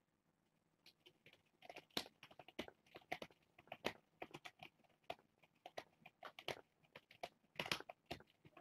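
Faint, irregular clicks and scuffs from a kitten squirming and struggling while he is held and given medicine, several sharp ticks a second.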